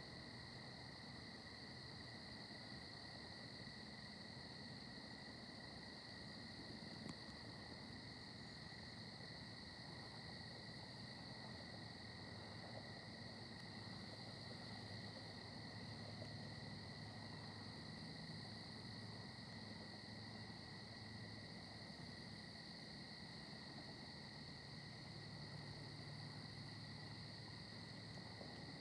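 Steady chorus of insects trilling without a break at two high pitches, with one faint click about a third of the way in.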